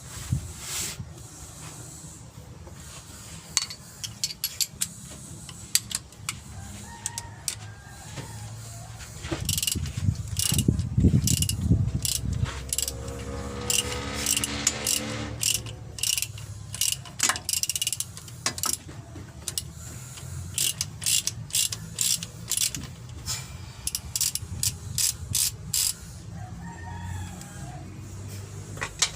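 Hand ratchet wrench clicking in quick runs, with single metal clicks between and a louder low rattle about ten to twelve seconds in.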